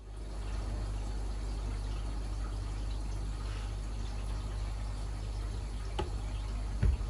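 Steady low electrical hum under a faint hiss like running water, with two light knocks near the end, the second one louder.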